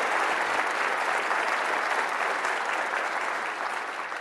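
A large audience applauding, a dense steady clatter of many hands clapping that begins to fade near the end.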